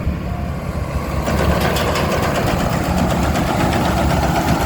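Tamco rice combine harvester's Isuzu diesel engine running steadily under load, with a rapid mechanical clatter joining in about a second in.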